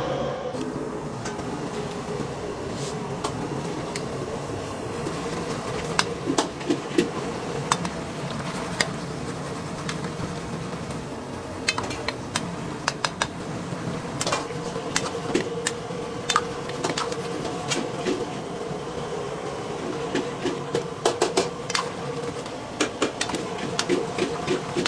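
Metal spatula and ladle clinking and scraping against a wok of braising pork belly, in scattered sharp clicks, over a steady mechanical hum.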